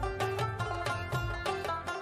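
Background music in a traditional folk style, led by a plucked string instrument and carried on a steady rhythmic pulse.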